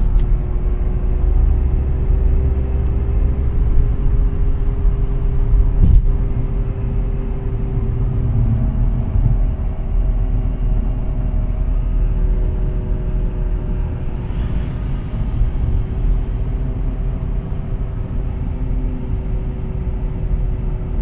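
Audi A4 B8 Avant on the move: steady road rumble with a droning hum that rises slightly in pitch over the first few seconds, then holds and eases a little, the noise of a failed wheel bearing. A single sharp click about six seconds in.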